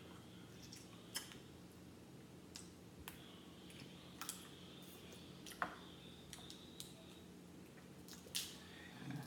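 Crab leg shells snapping and cracking as they are pulled apart by hand, a few irregular sharp clicks, with wet squishing sounds of eating the meat.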